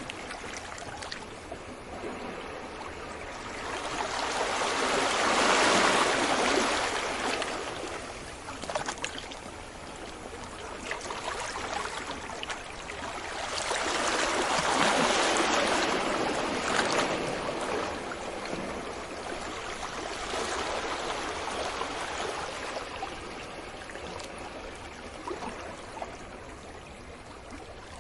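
Ocean waves washing onto a beach. Two larger waves swell up and break, loudest about six and fifteen seconds in, with a smaller one around twenty seconds, and a steady wash of water between them.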